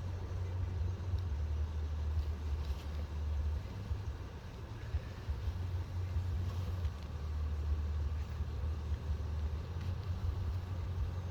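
High wind buffeting the microphone: a low, unpitched rumble that swells and dips with the gusts.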